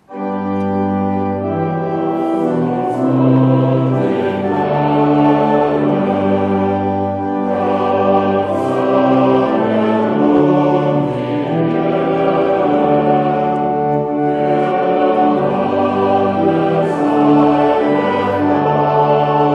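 A choir sings a hymn verse in slow, sustained chords, starting abruptly. It is the sung praise verse (Lobvers) that follows the offertory prayer in a Lutheran service.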